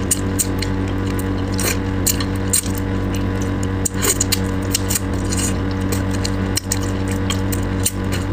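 Close-miked eating sounds: wet clicks and lip smacks of someone chewing braised crucian carp and working out its small bones, over a steady low hum.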